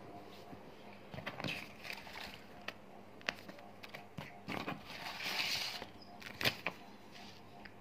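Cardboard, paper inserts and a plastic blister pack being handled, with irregular light knocks and clicks and a longer rustle about five seconds in.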